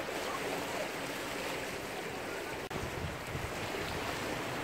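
Steady beach ambience: wind on the microphone and small waves lapping at the shore, with a momentary dropout a little past halfway.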